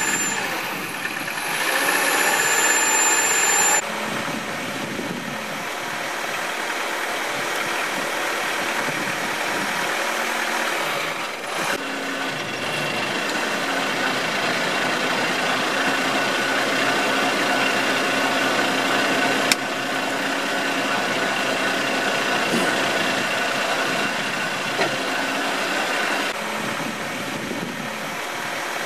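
Engine-driven firewood processing machinery running steadily, its sound changing abruptly three times, with a single sharp knock about two-thirds of the way through.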